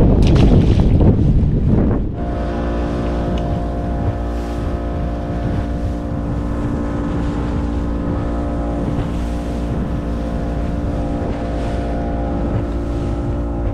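A boat motor running at a steady, unchanging speed. Heavy wind buffets the microphone for the first two seconds.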